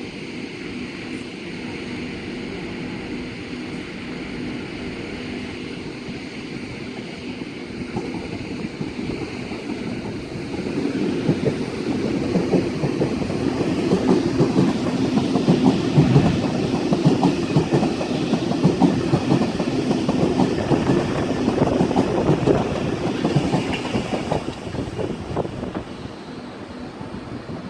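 A train passing close by, its wheels clattering rapidly over the rail joints. The sound builds about ten seconds in, is loudest through the middle and fades near the end.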